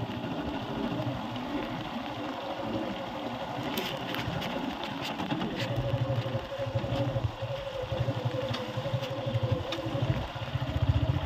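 Motorcycle engine running at low speed as the bike rides over a muddy dirt road, with a steady low chugging. A thin steady whine joins about halfway through, and the engine grows a little louder.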